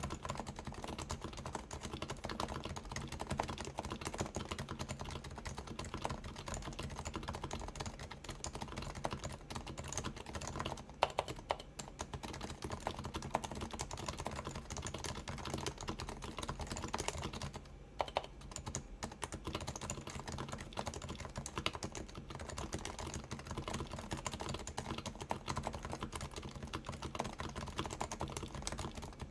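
Steady, fast typing on a Keyhub Design RF-8X keyboard with silenced 45 g Topre electro-capacitive switches (purple sliders and silencing rings) and Realforce keycaps: a dense run of muted keystrokes, briefly pausing about 11 and 18 seconds in.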